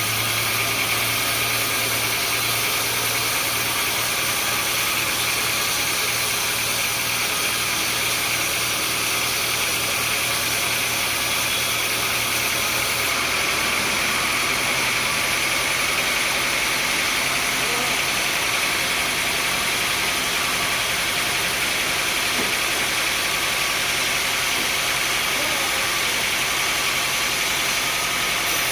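Sawmill machinery running steadily: a constant mechanical hum with an even hiss above it, with no pauses or distinct strikes.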